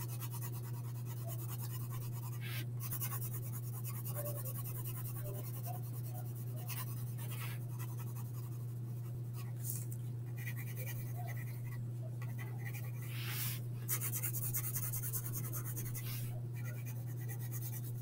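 Pencil shading on paper: short runs of soft scratchy strokes at uneven intervals, over a steady low hum.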